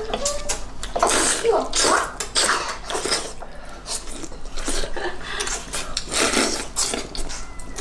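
People slurping wide noodles from soup, a run of short wet sucking bursts, with light clicks of chopsticks against the bowls.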